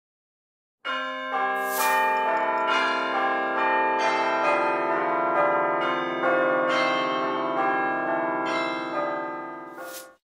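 Bell-like chiming music: struck notes ring one after another and overlap, starting about a second in and dying away just before the end.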